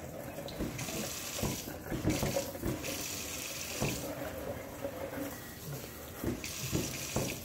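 Kitchen faucet's pull-down sprayer running water into a stainless steel sink while rinsing a muddy dog, the splashing uneven as the spray moves.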